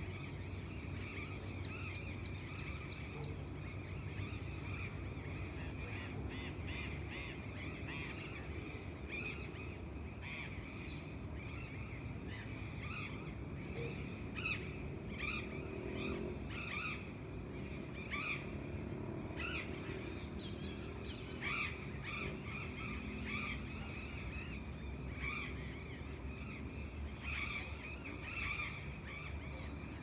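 Dawn chorus of many birds chirping and calling over one another throughout, with a low steady rumble of distant motor traffic underneath.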